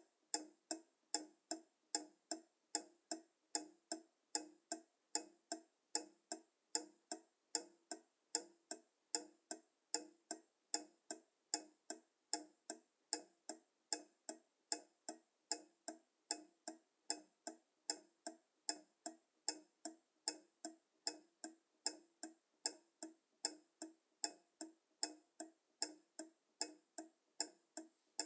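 Pendulum clock ticking steadily, about two ticks a second, with the tick and the tock slightly different in strength.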